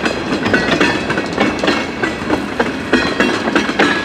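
Freight train cars rolling past, their steel wheels clattering over the rail joints in an irregular run of clicks.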